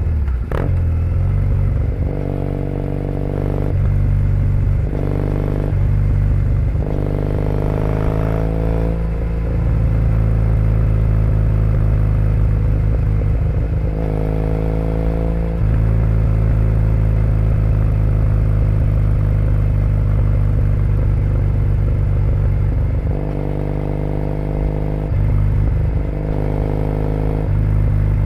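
2008 Triumph Bonneville T100's air-cooled 865 cc parallel twin running through aftermarket British Customs Predator exhaust pipes, at low road speed. The throttle is opened briefly six times, the pitch rising each time, between stretches of steady low running off the throttle.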